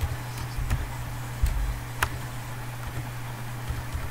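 Computer keyboard keys tapped in an irregular run as a password is typed, a handful of sharp clicks over a steady low hum.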